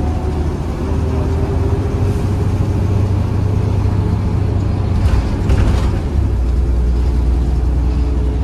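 Volvo B7RLE bus's six-cylinder diesel engine running under way, heard from inside the bus, with a deep rumble and an engine tone that rises over the first few seconds. A brief burst of hiss or rattle comes about five seconds in.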